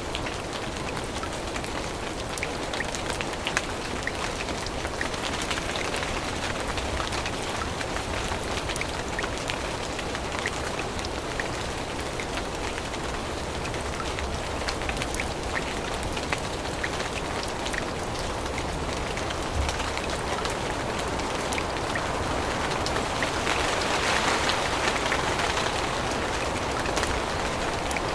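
Steady rain falling on forest leaves and ground, a dense patter of individual drops over a continuous hiss. It grows louder for a few seconds near the end.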